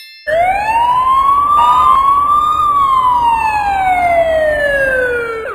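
Emergency vehicle siren sounding one slow wail: the pitch rises for about two seconds, then falls steadily for about three seconds, over a low rumble.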